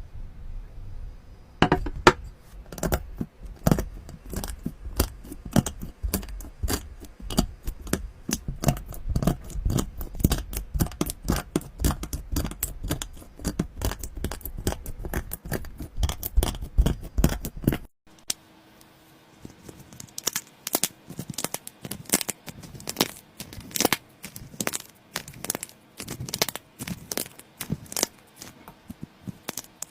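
Slime being squeezed and pulled apart by hand, giving a dense run of sticky crackles and clicks. About two-thirds of the way through, the sound changes abruptly to a different take with a quieter background and a faint steady hum, where the crackling goes on.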